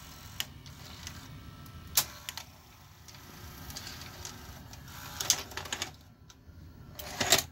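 Fisher FVH-4901 VCR's open tape transport unloading and ejecting a cassette: scattered mechanical clicks, then a busier stretch of loading-motor and gear whirring with clatter near the end.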